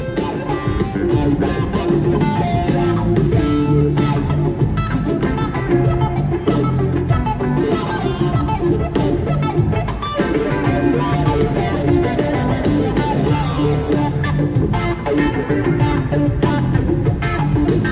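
Live rock band playing in concert, electric guitar prominent over bass and drums.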